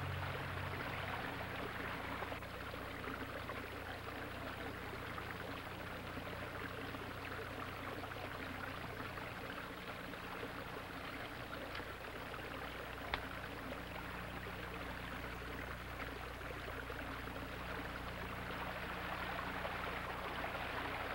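Steady rushing noise, like running water or air, over a low constant hum, with a single faint click about 13 seconds in.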